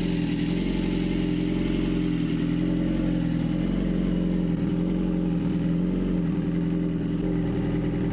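BMW S1000RR inline-four engine idling steadily through an aftermarket SC Project exhaust.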